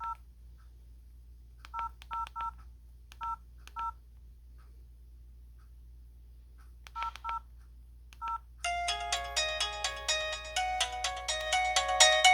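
LG 441G phone beeping with short two-tone keypad tones as buttons are pressed, nine beeps in small groups. About nine seconds in, a polyphonic ringtone melody starts playing from its speaker.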